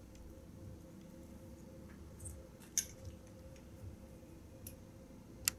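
A few faint, sharp clicks of fly-tying tools and fingers handling the fly in the vise, the clearest near the middle and just before the end, over a low steady hum.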